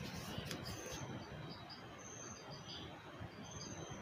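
Faint, short, high-pitched chirps repeating every second or so over low room noise, with a light knock about half a second in as the under-seat subwoofer's plastic case is turned over in the hands.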